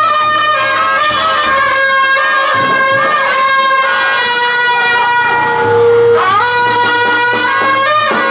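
Brass band playing: trumpets carry a melody in long held notes over drums.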